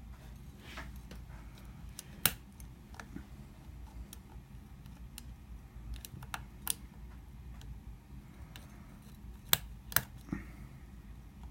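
Lock pick and tension wrench working in a cheap bike lock's pin cylinder: scattered light metal clicks and taps, with a sharper click about two seconds in, another near seven seconds, and three in quick succession near the end.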